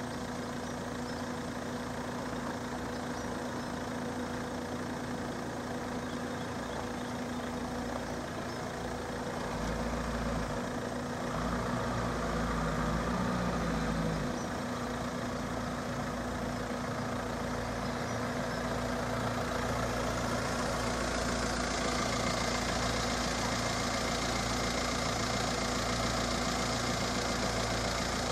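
Car engine idling steadily, with a low rumble swelling from about ten to fourteen seconds in and a broad hiss building from about twenty seconds on.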